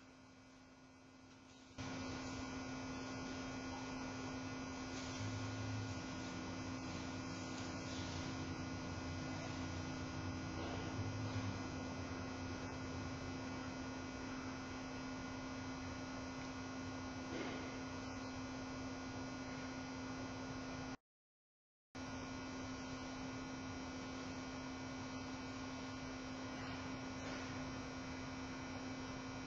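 Steady electrical hum and hiss of a zoo webcam's audio feed, with a few faint rustles. The sound steps up in level about two seconds in and cuts out completely for about a second two-thirds of the way through.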